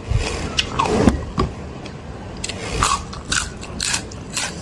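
Close-miked eating: a person biting and chewing, with irregular short crunches and wet mouth clicks.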